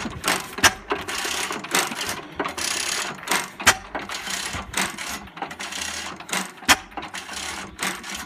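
12 hp Sattley throttle-governed single-cylinder stationary engine running slowly on propane: a steady mechanical clatter with sharp clicks about every half second to a second.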